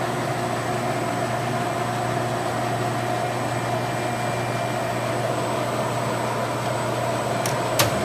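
Landis LCHH plain hydraulic cylindrical grinder running under power: a steady machine hum with a low tone and a faint high tone. Two quick clicks near the end.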